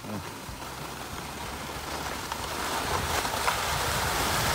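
Skis sliding on a groomed, packed-snow track during a downhill run: a steady rushing that slowly grows louder as speed builds.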